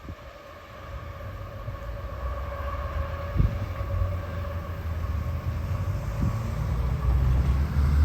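Diesel locomotives of a CSX light-engine move approaching, their low rumble growing steadily louder, with a faint steady tone and a few thumps of wind on the microphone.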